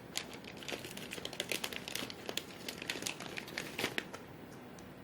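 Rapid crinkling and crackling, many sharp little clicks for about four seconds, stopping near the end, over a steady fan running in the background.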